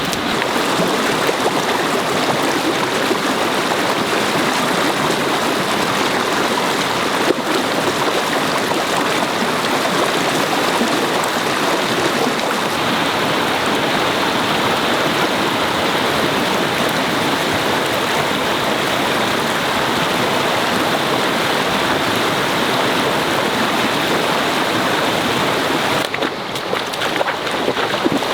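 Steady rush of flowing water, with one sharp click about seven seconds in; the rush turns slightly quieter and more uneven near the end.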